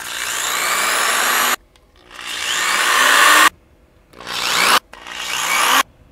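Corded electric drill boring pilot holes into a wooden cabinet door in four bursts, two longer then two short, its motor whine rising as it spins up each time. The bursts are kept short to start the holes gently without going through the thin door.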